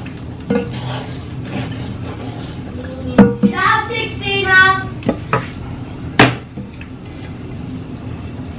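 A ladle and a wooden spatula knock and scrape against a frying pan and a glass dish as food is served out, with a few sharp clinks, the loudest about three seconds and about six seconds in. A steady low hum runs underneath.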